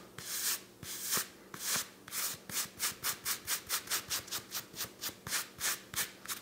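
A hand-held dog hair remover scraped back and forth across a cotton sock, a run of rubbing strokes, slow at first and then quickening to about four strokes a second. The tool is pulling hair off but roughing up the sock's fabric into fuzz balls.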